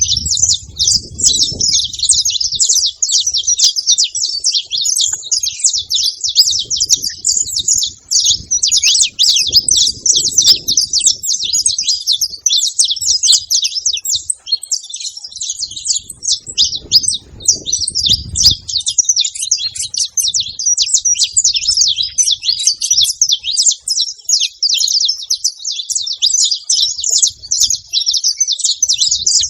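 Several saffron finches chirping and singing together in a dense, unbroken chatter of quick high notes.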